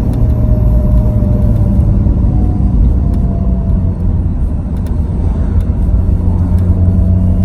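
Supercharged Pentastar V6 in a Dodge Charger running with a steady, even drone and no sharp revving.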